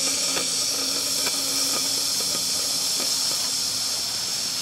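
Steady hiss of steam venting from the PM Research BLR-2 model boiler's pressure relief valve, which has lifted at about 35 psi: the boiler is at full pressure.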